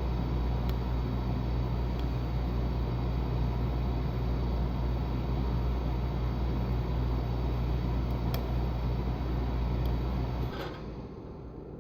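A steady low mechanical hum with a broad rushing noise, which cuts off suddenly about ten and a half seconds in, with a few faint clicks over it.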